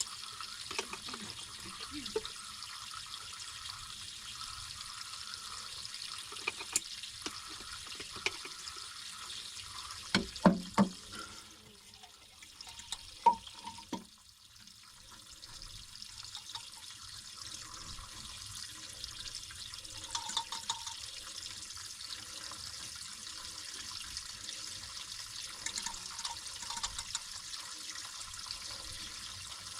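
Water from an artesian well running steadily out of its pipe, with a few sharp knocks about a third of the way in and a brief drop in the flow sound just after them.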